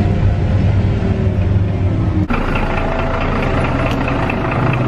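City bus engine running with a steady low hum, heard from inside the cabin. About two seconds in, the sound cuts abruptly to engine noise from the street side, with a steady higher whine over it.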